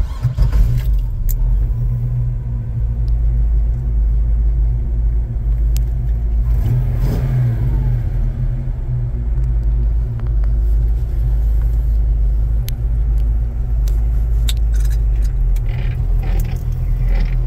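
Engine of a 1946 Chevrolet pickup running, heard from inside the cab as the truck pulls away: a low, steady rumble that swells briefly about seven seconds in, with a few small clicks and rattles.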